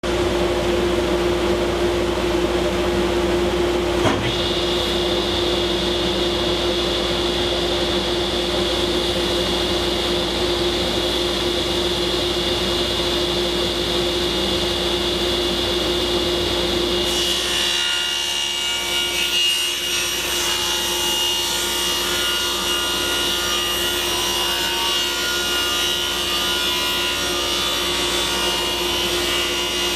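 Delta table saw running with a steady whine, with a single knock about four seconds in. About halfway through the blade starts ripping a cedar board into strips: its whine drops a little in pitch under the load and a hiss of cutting joins it.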